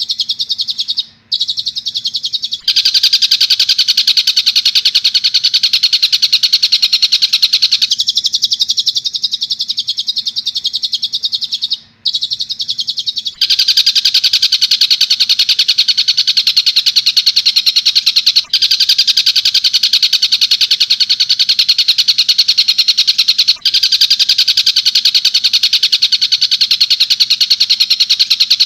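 Looped recording of a bird's rapid, continuous chattering call, with no pause between the notes. Twice it switches between a thinner, higher stretch and a fuller, louder one with a lower note band, about 3 s in and again about 13 s in, and it breaks off briefly twice. A faint steady electrical hum sits underneath.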